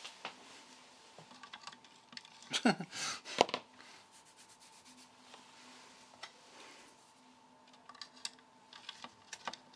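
Hand-tool handling clicks: a screwdriver and fan knocking and scraping against a power supply's metal case, with a cluster of knocks around three seconds in and light ticks again near the end.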